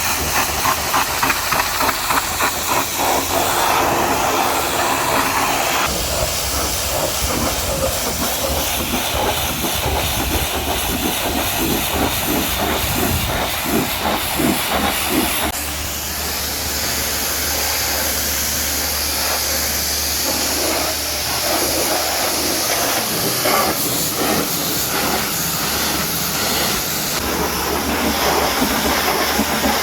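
A high-pressure washer jet sprays water onto a truck's bodywork, making a steady loud hiss. The spray flutters rapidly in the first few seconds and again around the middle, and a low hum sits underneath from about six seconds in.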